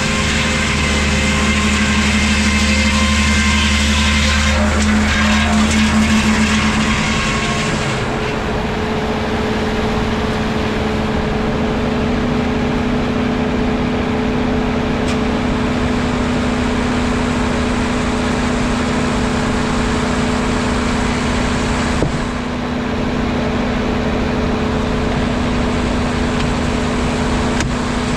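Sawmill machinery running steadily with a constant hum. A deeper low note drops out about seven seconds in, and there is one sharp click about two-thirds of the way through.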